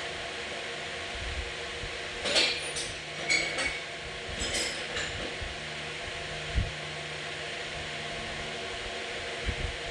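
Metal parts clinking and tapping against each other: a few light metallic clinks, one briefly ringing, about two to five seconds in, then a single dull knock. A steady fan-like hum runs underneath.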